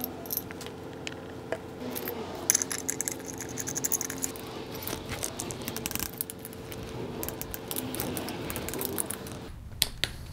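Steel bolts and brackets clinking and a ratchet wrench clicking in quick runs as bolts are tightened, over a steady hum that stops near the end.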